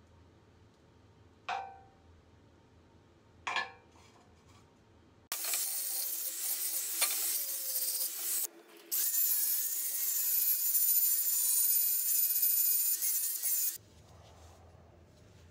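Angle grinder with an abrasive disc grinding the cut edge of a square steel tube section: a loud grinding noise with a steady high whine, starting about five seconds in, breaking off briefly near the middle, then running again before stopping. Before it, two short metallic clinks as the steel piece is handled.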